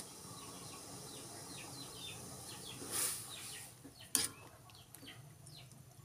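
Spatula stirring greens in a pan of simmering broth, with a brief hiss about three seconds in and a sharp clink of the spatula on the pan just after four seconds. Small birds chirp in the background throughout, making many short falling chirps.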